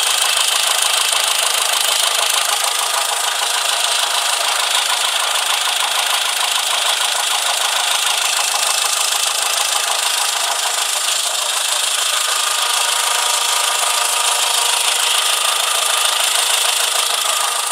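Engine running steadily with a rapid, even knocking.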